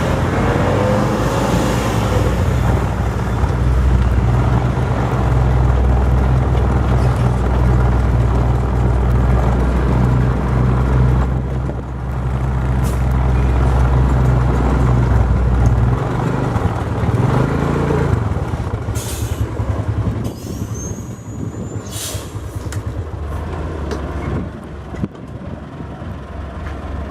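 Heavy diesel engine running steadily, easing off after about 16 seconds. Short sharp hisses about 19 and 22 seconds in, with a brief high squeal between them.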